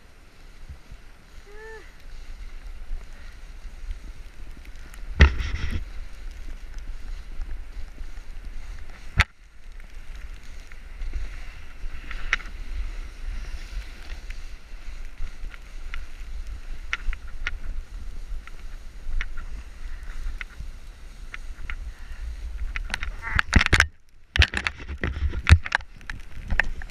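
Snowboard sliding and scraping over packed snow, with wind buffeting the action camera's microphone. Near the end a flurry of knocks and scrapes as the rider goes down in the snow.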